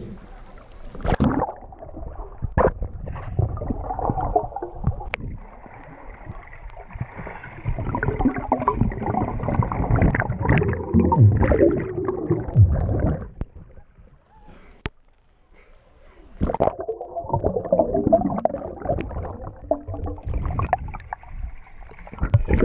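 Water sloshing and gurgling around a GoPro in spring water, muffled, coming in irregular surges with a short lull about two-thirds of the way through.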